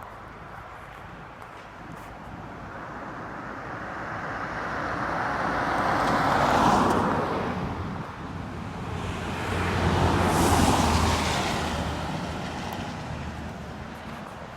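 Two road vehicles passing one after the other, each tyre-and-engine noise swelling up and fading away, the first loudest about seven seconds in and the second about ten seconds in with a low engine hum.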